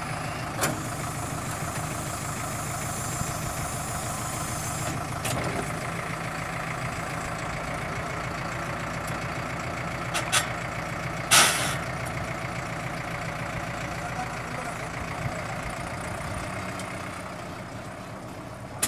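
Sonalika 110 HP tractor's diesel engine running steadily while it works a reversible mouldboard plough, with a few sharp clicks and a short loud clank a little past halfway as the plough is swung over. The engine grows fainter near the end.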